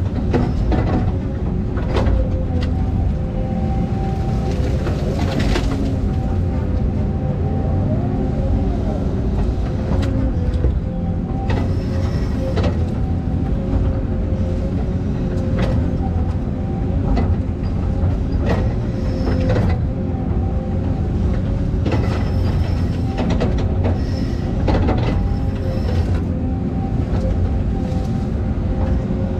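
Volvo 220E excavator running steadily under work, its engine rumble overlaid by a steady hydraulic whine and frequent sharp metallic clanks.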